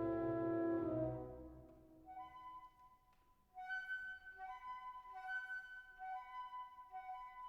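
Instrumental background music. A held low chord fades out about a second in, then a slow melody of long held notes in a higher register follows.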